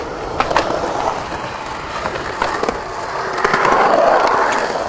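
Skateboard on concrete: wheels rolling and several sharp clacks of the board hitting the ground, with a louder rush of rolling noise about three and a half seconds in.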